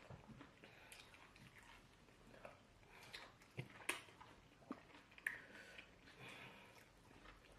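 Near silence with faint eating sounds: soft chewing and mouth noises, and a few small clicks and smacks around the middle.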